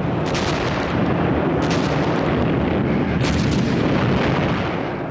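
Artillery barrage: a continuous heavy rumble of gunfire, with sharper blasts standing out near the start, just under two seconds in, and around three seconds in.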